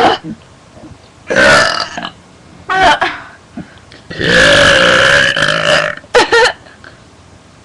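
A run of loud, deliberate burps by girls: a short one about a second in, another near three seconds, then a long drawn-out burp of nearly two seconds, and a quick last one.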